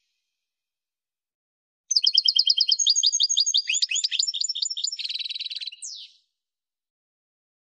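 European goldfinch singing: one phrase of about four seconds, starting about two seconds in, made of rapid high trills and quick sweeping twittering notes, ending in a fast rattling trill and a single downward sweep. It comes before and after silence.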